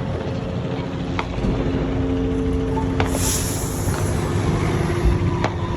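Steady low outdoor rumble with a held hum, broken by a few faint, distant firework pops and a short hiss about three seconds in.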